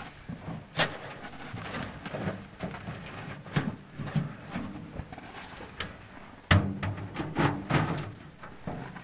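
Sheet-metal Kni-co Alaskan wood stove being handled and set up: a series of sharp metallic clanks and knocks as the box is put down and its folding legs are opened. The loudest knock comes about two-thirds of the way through, with rustling and shuffling in between.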